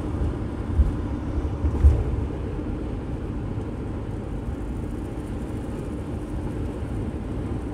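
Steady road and engine rumble inside a moving vehicle's cabin, with two brief low thumps in the first two seconds.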